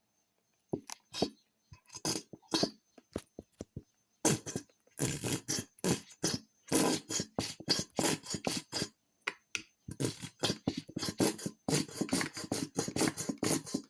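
Two tablespoons of tomato sauce being measured out into a bowl: a run of short, irregular squelches, splutters and spoon clicks, sparse at first and almost continuous after about four seconds.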